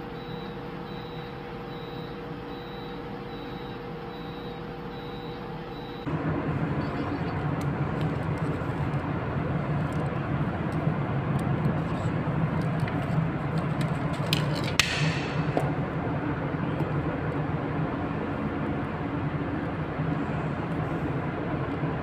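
Steady equipment hum with a faint high beep repeating at an even pace. About six seconds in it gives way to the louder, steady drone of ship's steering gear room machinery. Partway through there is one sharp metallic clink, which fits the float level switch rod being handled.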